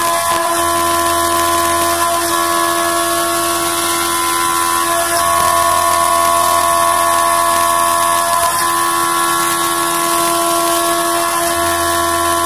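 CNC vertical milling machine cutting aluminium with an end mill under coolant spray: a steady whine of several tones over a hiss. It swells slightly in the middle, then settles back.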